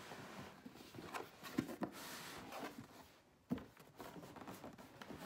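Louis Vuitton cardboard gift box being handled and its lid taken off: faint taps, scrapes and a soft sliding rustle, with a sharper knock about three and a half seconds in.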